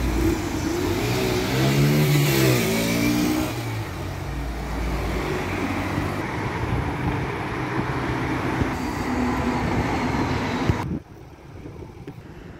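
City street traffic: cars passing close by, one engine rising and falling in pitch as it goes past about two seconds in, over a steady wash of tyre and engine noise. The traffic sound cuts off suddenly near the end, leaving a much quieter background.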